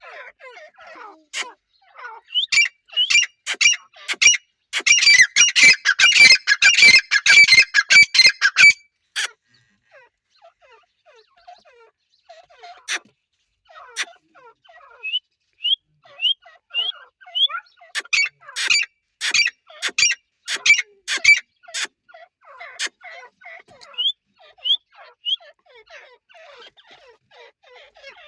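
Francolins (teetar) calling: two loud bouts of rapid, sharp repeated notes, the first starting about two seconds in and the second starting about two-thirds of the way through. Between the bouts come short rising notes and softer chatter.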